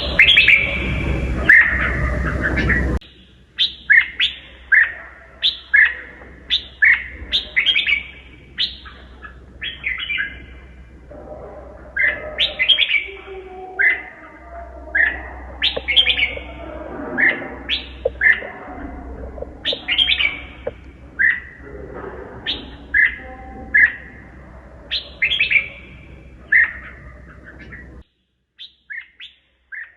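Red-whiskered bulbul singing rapid, twisting phrases of short chirpy notes, several a second. A background hum drops out abruptly about three seconds in, and the background goes almost silent near the end while faint notes carry on.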